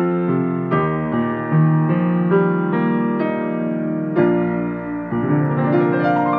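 Solo grand piano playing sustained chords struck about once a second, with a quick rising run of notes near the end.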